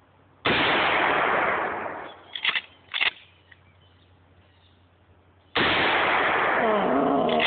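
Two pump-action shotgun shots about five seconds apart, each a loud blast that overloads the microphone and rings on for a second or more. Each is followed by two quick clacks of the pump being racked to chamber the next shell.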